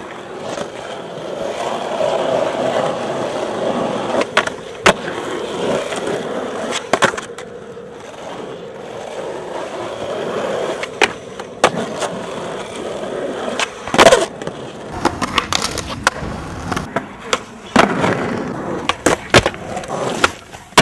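Skateboard wheels rolling, broken by a series of sharp board pops, slaps and landings, the loudest about 14 s in.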